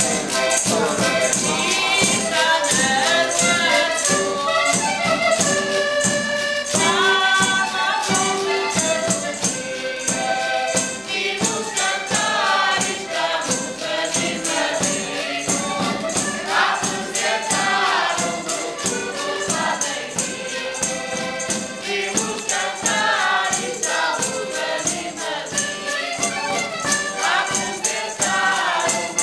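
Portuguese folk group singing together to a diatonic button accordion, with a drum and hand percussion keeping a steady, quick beat.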